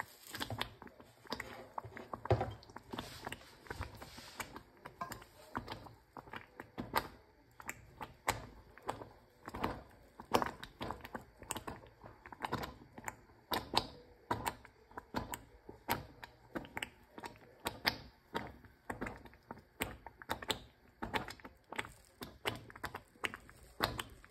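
A stirring utensil clicking and scraping against a saucepan as cream of wheat porridge is stirred, in uneven sharp clicks about two a second.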